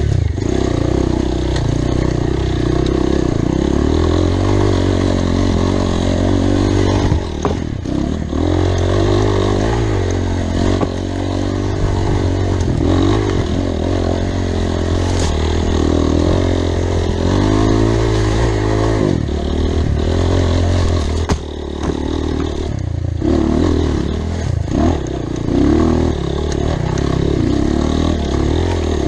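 Motorcycle engine running continuously, its revs rising and falling as the throttle changes, with a few brief dips.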